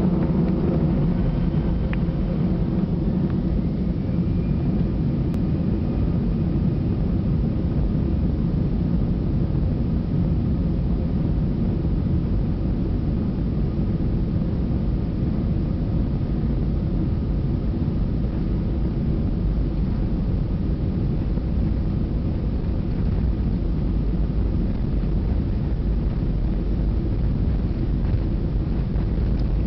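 Airliner's jet engines running at low power as the plane taxis on the ground, heard from inside the cabin: a steady rumble with a faint engine whine over it.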